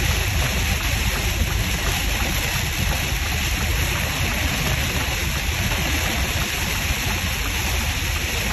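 Heavy rain and road spray hitting a semi truck's windshield and cab, over the steady low rumble of the truck and its tyres on the flooded highway, heard from inside the cab.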